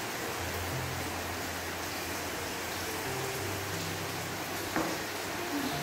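Steady hiss of background noise with a low hum underneath, and a single click near the end.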